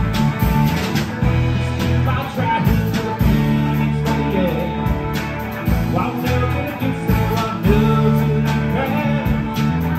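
Live band playing with electric guitars, electric bass and a drum kit, a man singing lead over it.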